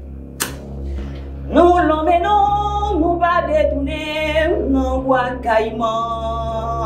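A voice singing long, held, wavering notes over a steady low backing drone. A sharp click comes about half a second in.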